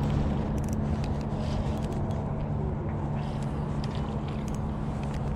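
Steady low outdoor rumble with a faint steady hum underneath and a few faint ticks.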